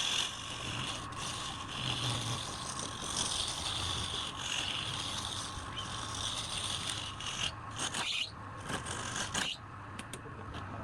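Wood scraping against a woodworking tool or abrasive, a steady scratchy noise with a faint steady hum from a running machine. It breaks off briefly twice near the end.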